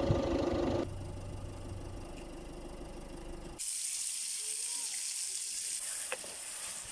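Food sizzling in hot oil in a frying pan on a portable gas stove. The hiss starts suddenly about three and a half seconds in. Before it there is a short steady hum, then quieter noise.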